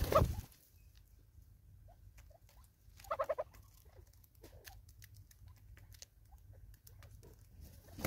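Birds at a ground seed feeder: a short, rapid run of clucking notes about three seconds in, with scattered light taps of pecking. There is a louder burst of sound right at the start.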